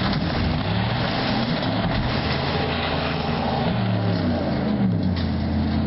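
Several pickup truck engines (Ford, Chevy and Dodge) revving hard together at full throttle, their pitches rising and falling, over a dense rushing noise. The trucks are straining against chains hooked to a house.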